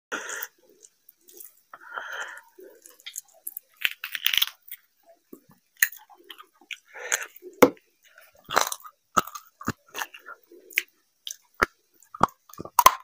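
Close-miked eating of curried mutton on the bone: wet tearing and squishing as the meat is pulled off by hand, then chewing, with many short, sharp smacks and clicks.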